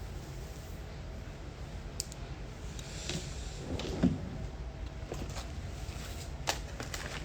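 Handling noises: a few light clicks and knocks, the loudest about four seconds in, over a steady low hum.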